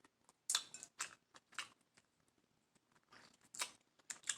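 Close-miked chewing and wet mouth smacks while eating a seafood boil, in a few separate sharp clicks with pauses between them.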